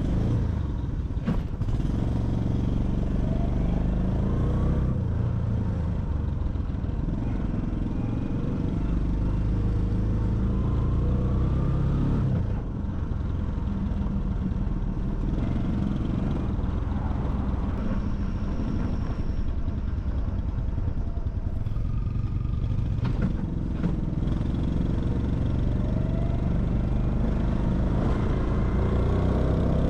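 Small single-cylinder Honda Hunter Cub motorcycle engine running while riding, its note rising and falling several times as the bike speeds up and eases off.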